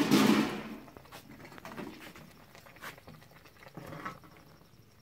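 A pot cover lifted off an aluminium cooking pot with a short metallic clatter, followed by a few light clicks and knocks of a spoon stirring thick groundnut sauce in the pot.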